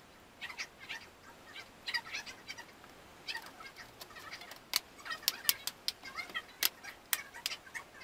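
Plastic clips of an HP Chromebook 11 G5 keyboard snapping into the laptop's case as it is pressed down: a run of about seven sharp clicks starting about halfway through. Birds chirp in the background throughout.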